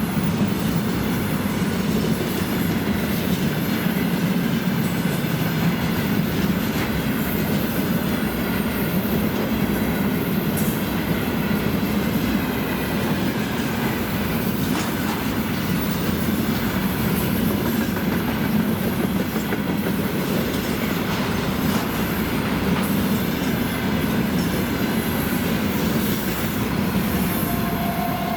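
Freight train rolling past at speed: a steady, loud noise of wagon wheels running on the rails.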